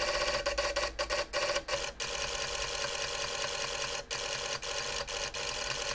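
Xiegu G90's internal automatic antenna tuner relays clattering rapidly and without a break as it hunts for a match on the 40-metre band. The fast clicking thins briefly about four seconds in, then carries on.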